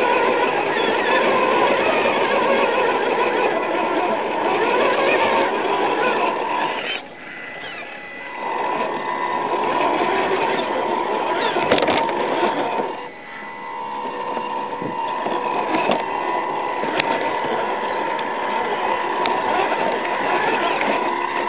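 Electric motors and gearboxes of radio-controlled rock crawlers whining steadily as they drive over gravel and rocks. The whine cuts out briefly twice, about seven and thirteen seconds in, as the throttle is let off.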